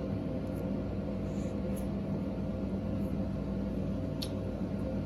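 Steady low hum and hiss of background room noise, with one faint tick about four seconds in.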